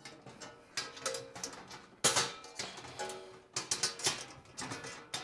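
Crescent wrench clanking and clicking against the steel tabs of a sheet-steel mock-up engine block as the tabs are levered over one at a time. The knocks come irregularly, the loudest about two seconds in, and the steel plates ring briefly after some of them.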